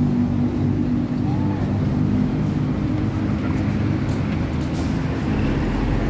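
Street traffic at a busy transport hub, with a heavy vehicle's engine running steadily as a low hum.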